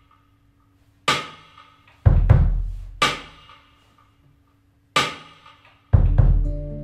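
Sparse drum-kit intro: single drum hits about a second apart, deep bass-drum thuds alternating with brighter snare or tom strikes that ring out and die away into quiet gaps. Near the end sustained guitar notes come in under the drums.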